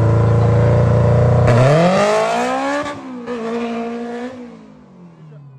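Honda Civic hatchback's four-cylinder engine held at steady high revs on the line, then launching. Its pitch climbs, dips briefly at a gear change about three seconds in, climbs again, then falls away and fades as the car pulls off.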